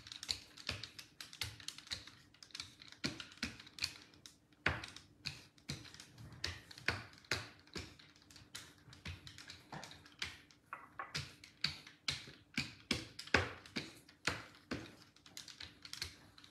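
Mini pastry roller worked back and forth over rolled-out crescent roll dough on a stone countertop, making irregular clicks and taps, a few a second, with a faint steady hum underneath.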